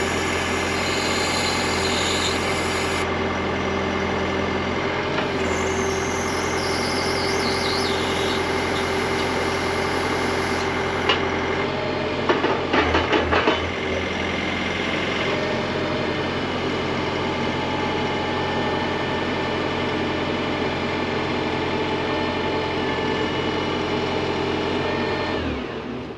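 Mecalac 8MCR machine's diesel engine running steadily with hydraulic whine as the boom and pallet forks are moved, and a quick rattle of knocks about halfway through. The engine shuts off near the end and the sound dies away.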